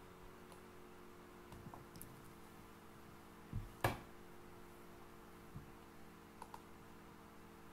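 Faint steady electrical hum with a few soft computer mouse clicks scattered through it. The loudest is a pair of clicks just before the middle.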